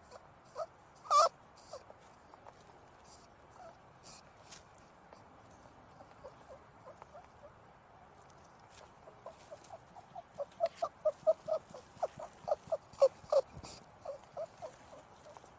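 A small animal squeaking in short, high calls: one loud squeak about a second in, scattered quieter ones, then a quick run of squeaks in the second half, with light clicking or pattering alongside.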